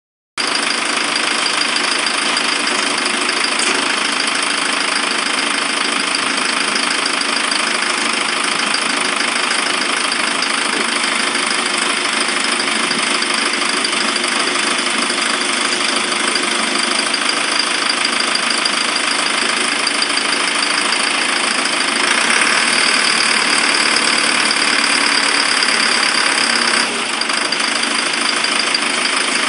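New TE454 tractor's diesel engine running steadily at idle on a test. It grows louder about 22 seconds in and drops back about 27 seconds in.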